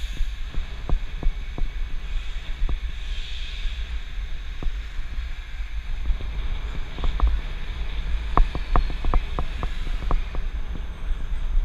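Wind rushing over a helmet-mounted action camera's microphone while cycling in traffic, a steady low rumble, with scattered sharp clicks and rattles that bunch up in the second half.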